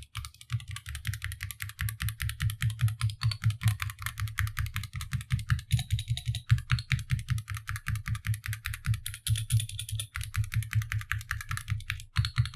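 Mechanical keyboard with linear Gateron switches being typed on quickly in a typing-sound test: a fast, steady run of keystroke clacks.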